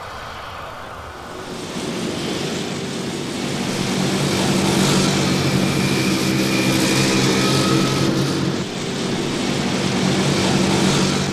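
Motorcycle engines running as a group rides along a road, droning steadily and growing louder over the first few seconds, with a short dip and change in pitch near the end.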